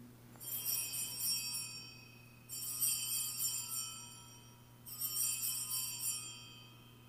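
Altar bells (Sanctus bells) rung three times, each a bright jingle of small bells that fades over a second or so. They mark the elevation of the chalice at the consecration.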